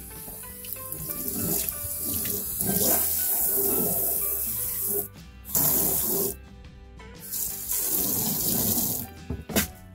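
Water running into a plastic utility sink, rinsing spent silicon carbide tumbling grit down the drain. The flow drops out briefly a few times, about halfway through and near the end.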